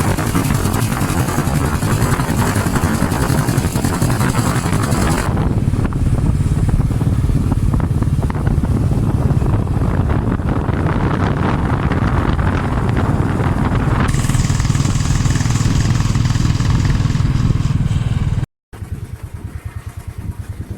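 Motorcycle engine running steadily while riding, with a loud hiss over it for the first few seconds. The sound breaks off sharply near the end and comes back quieter.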